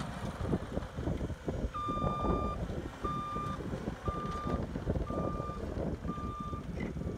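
Cat 259D compact track loader reversing: its backup alarm beeps five times at one steady pitch, about one beep a second, starting about two seconds in, over the steady running of its diesel engine.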